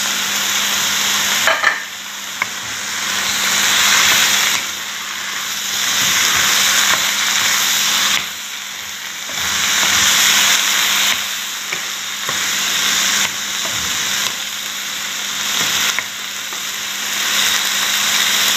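Diced white squash and carrots sizzling in a nonstick wok as they are stirred with a wooden spatula; the sizzle rises and falls every few seconds with the stirring.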